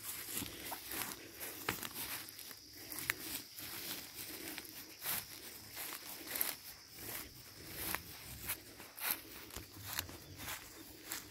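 Footsteps through long grass, with irregular rustling and swishing of the stalks.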